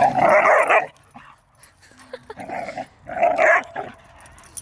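Dogs barking while they play, in two bouts: one at the start and another about two and a half seconds in.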